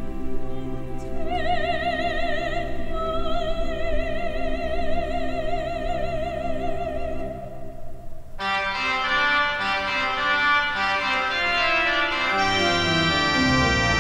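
Choral anthem with pipe organ. A sustained organ chord lies under a single high voice with strong vibrato. About eight seconds in, the full organ and voices come in together with moving chords and a low pedal line.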